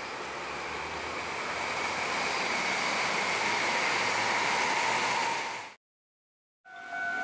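Rushing noise of a Taiwan High Speed Rail 700T train passing at speed, swelling steadily with a faint whine on top, then cutting off abruptly. After a second of silence, a railway level-crossing warning signal starts sounding with a steady ringing tone near the end.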